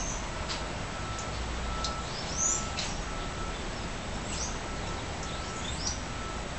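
Birds chirping in short, sweeping high calls a few times over a steady hiss of outdoor background noise, with a faint short note repeating about every half second.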